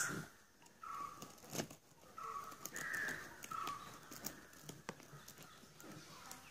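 Crows cawing, about four short caws over the first four seconds, with a couple of light knocks as a garden hose is worked onto a PVC pipe.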